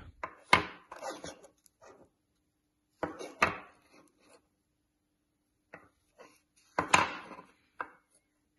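Handling noise from a plastic dosimeter case held in gloved hands: three sharp knocks, near the start, in the middle and near the end, each followed by brief rubbing, with a few softer taps between.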